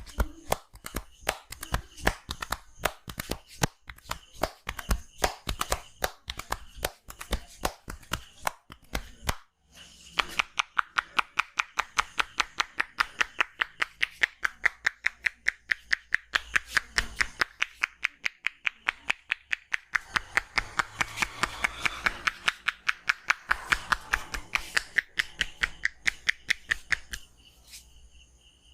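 Hands slapping and clapping on the head and body in percussive massage. The strokes are irregular at first; after a brief pause they settle into a fast, even rhythm of about four hollow claps a second, then stop near the end.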